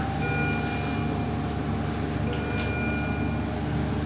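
Bedside medical alarm sounding a steady beep about every two seconds over a continuous low hum of ICU equipment.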